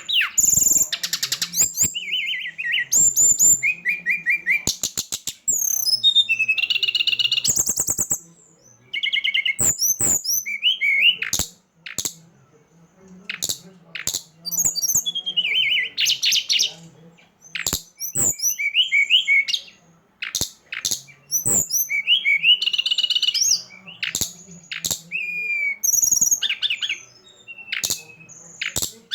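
Songbird lure call: a rapid, varied string of high chirps, trills and sharp clicks, broken by short pauses.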